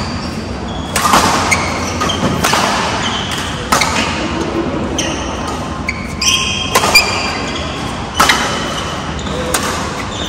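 Badminton rally in a sports hall: rackets strike the shuttlecock with a sharp crack every one to one and a half seconds, echoing, and short high squeaks from court shoes sound between the hits.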